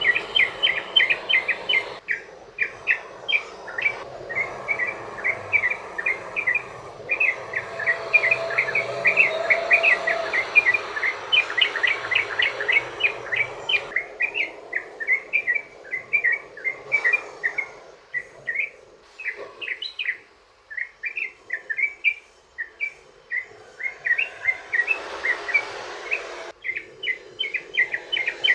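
Yellow-vented bulbul (trucukan) singing a long, fast run of short chirped notes, several a second, with only brief breaks.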